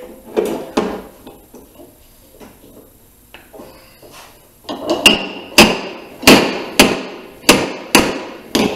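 Slide hammer dent puller pulling on a welded-on stud, its sliding weight slammed against the end stop to raise a low spot in a steel body panel. Two knocks right at the start, a lull, then seven sharp knocks about half a second apart from about five seconds in.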